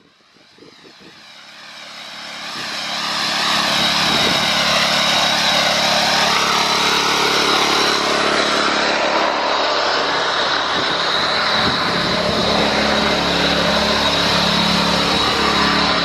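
An engine running steadily, fading in over the first few seconds.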